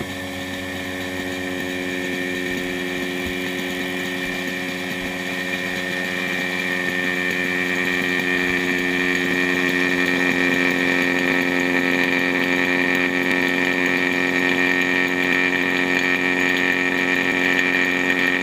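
Electric vacuum pump running steadily, drawing the air out of a bell jar; its steady note grows gradually louder.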